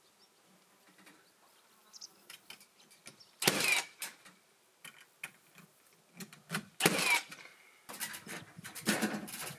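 Construction work on wood-fibre wall sheathing panels: scattered knocks and clicks with short, harsh scraping or tool bursts about three and a half seconds in, again around seven seconds, and several more near the end.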